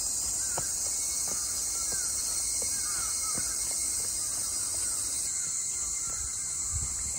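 A steady high-pitched insect chorus with short bird calls repeating over it; the chorus shifts slightly about five seconds in.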